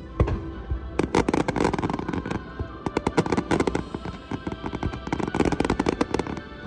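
Aerial fireworks bursting and crackling in quick succession over music: one sharp bang just after the start, then dense rapid cracks from about a second in.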